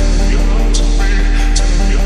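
Background music with a deep, loud bass line and held notes, and a sharp beat about every 0.8 seconds.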